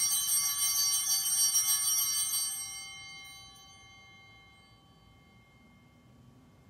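Small altar bells rung at the elevation of the chalice during the consecration. They are shaken for about two and a half seconds, then the bright, high ringing dies away.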